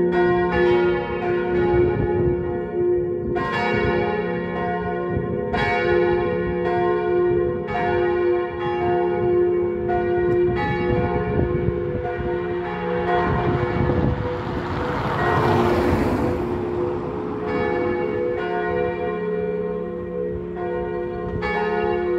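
Four church bells tuned to C, B-flat, A-flat and F ringing together in a continuous peal, strokes overlapping over a steady hum of ringing tones. Around the middle a rushing noise swells and fades beneath the bells.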